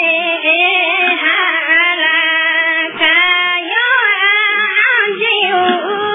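A high voice singing, with long held notes that bend up and down in pitch.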